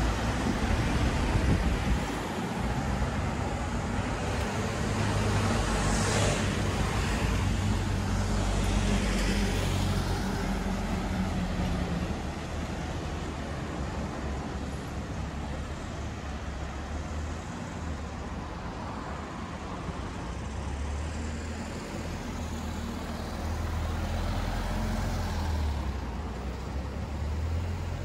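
Street traffic: the engine hum of vehicles running close by, with one vehicle going past about six seconds in and another a few seconds later.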